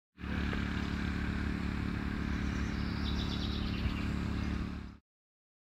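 Steady low outdoor hum and rumble, with a bird chirping a few times about three seconds in. The sound fades in at the start and cuts off abruptly.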